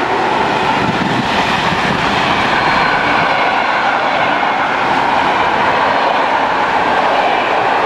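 Container freight train of flat wagons loaded with shipping containers passing close by. The wheels and wagons make a loud, steady rolling rumble and rattle on the rails.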